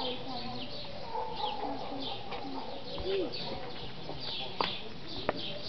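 High, rhythmic chirping from the trees, repeating a few times a second, with two sharp clicks near the end.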